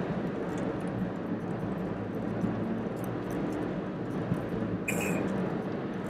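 Steady engine and road noise heard from inside a moving car, with a short, sharp sound about five seconds in.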